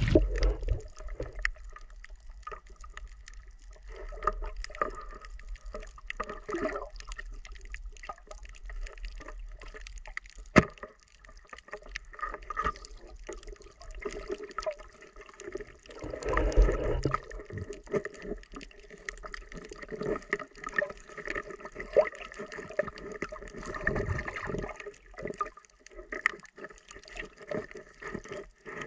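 Muffled underwater sound while a diver swims over a coral reef: gurgling water movement and a scatter of small clicks, with one sharp click about ten seconds in and a louder swell of water noise about sixteen seconds in.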